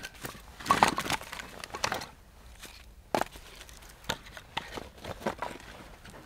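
Pieces of split firewood knocking together as they are picked up and gathered by hand: a series of scattered wooden clacks, with one loud knock right at the start.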